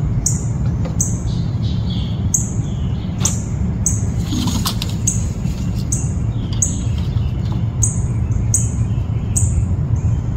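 A bird calling over and over, short high chirps about every second, over a steady low background rumble. A brief rustle about four and a half seconds in.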